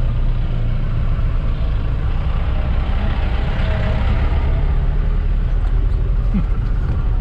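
Jeep running along under way: a steady, loud low engine and road rumble.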